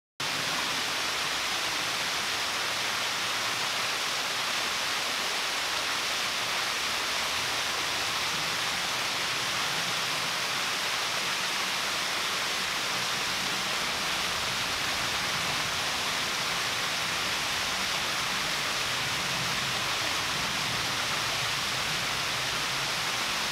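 Steady rushing splash of Log Hollow Falls, a small forest waterfall running with little water, cutting in suddenly at the very start and holding even throughout.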